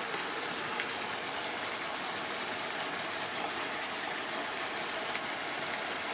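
Chicken and bamboo shoots cooking in a saucy frying pan on a gas burner: a steady sizzling hiss with a few small pops.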